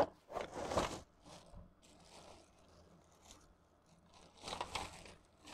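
Clear plastic packaging crinkling and rustling in irregular bursts as it is handled and pulled off, loudest in the first second and again about four and a half seconds in.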